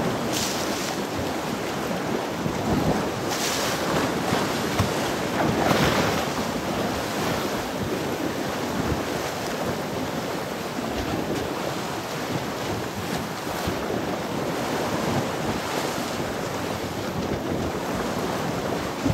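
Choppy sea waves washing and breaking, with strong wind buffeting the microphone; a few louder rushes come in the first six seconds.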